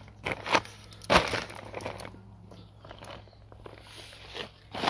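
A plastic tarp crinkling, with scattered clicks and knocks, as a motorcycle wheel and hand tools are handled on it; the loudest crackle is about a second in.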